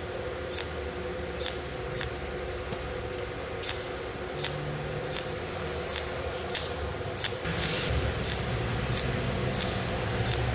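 Cold welding machine firing its pulses: sharp, evenly spaced clicks about every two-thirds of a second over a steady machine hum.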